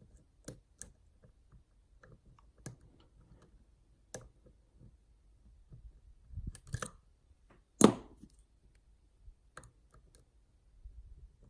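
Lock pick and tension wrench working the pin stack of a Yale Superior pin-and-slider lock, giving scattered sharp clicks and ticks as pins are lifted and set. The loudest click comes a little before two-thirds of the way through.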